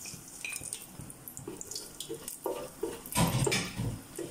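Whole spices sizzling and crackling in hot oil in an aluminium pot, with a wooden spatula scraping and knocking against the pot bottom as they are stirred, loudest about three seconds in.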